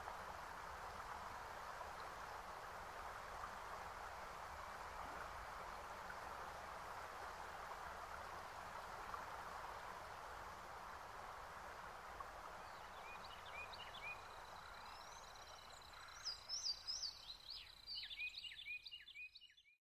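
A steady hiss of background noise, joined about two-thirds of the way in by birds chirping in quick rising and falling notes. The chirps grow louder, then everything fades out just before the end.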